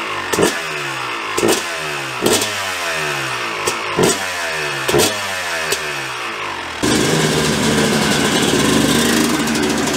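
Yamaha YZ250 two-stroke dirt bike engine running through a freshly repacked KTM silencer, revved in sharp throttle blips about once a second, its revs falling back after each. About seven seconds in, this gives way to a louder, steady engine sound.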